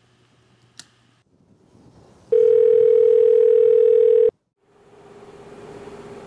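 Telephone dial tone from a cordless phone handset held to the ear: one steady hum lasting about two seconds that cuts off suddenly. A short click comes before it, about a second in, and a steady hiss follows near the end.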